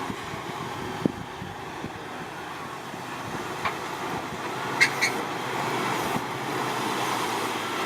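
Jeep engine running steadily as it crawls forward over rocks, with a few sharp knocks, one about a second in and a pair around the five-second mark.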